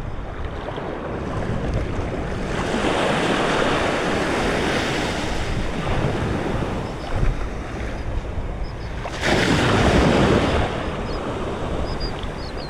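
Small waves washing up the sand at the water's edge, swelling louder about two and a half seconds in and again around nine seconds in, with wind rumbling on the microphone.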